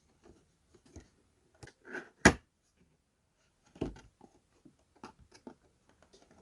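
Light, scattered clicks and taps from a Funko Pop's cardboard window box being handled and turned over, with a sharper knock about two seconds in and another near four seconds.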